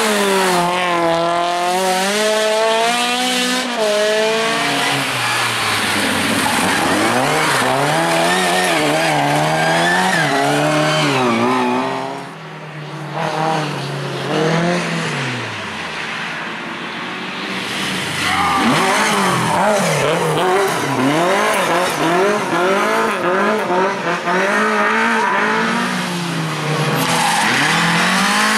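Rally car engines revving hard, the pitch rising and falling sharply with throttle and gear changes, with tyre squeal. The engine note drops away about twelve seconds in and comes back loud about six seconds later.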